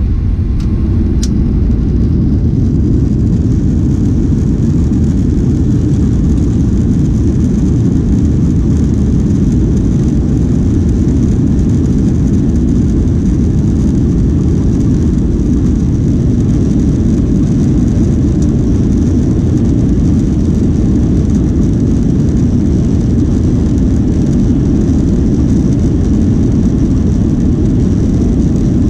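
Inside the cabin of a Boeing 737 jet airliner taxiing: a loud, steady rumble of the jet engines and the rolling airframe, with a faint steady high hiss, not rising in pitch or level.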